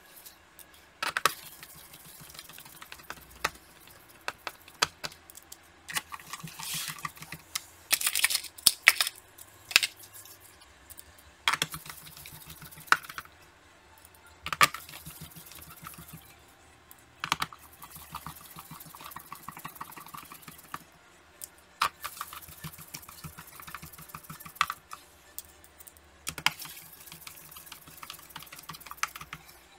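Small screwdriver driving screws back into an Acer TravelMate P215 laptop's bottom cover: scattered sharp clicks and short runs of rapid ticking as the screws are turned and seated.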